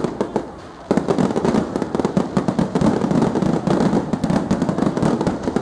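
Fireworks display: aerial shells bursting overhead in a dense, rapid crackle of many small pops. The crackle thins briefly near the start and comes back thickly about a second in.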